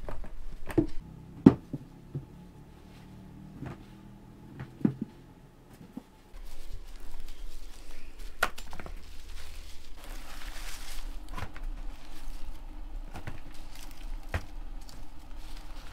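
Irregular knocks and thumps, the loudest about a second and a half in, over a low background hum that changes abruptly about six seconds in.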